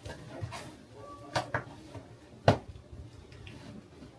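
A few light taps and rustles from balloons and their packets being handled, the loudest about two and a half seconds in.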